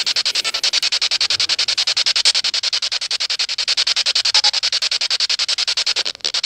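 Ghost-hunting spirit box sweeping through radio stations: choppy static pulsing about ten times a second, with a short break near the end.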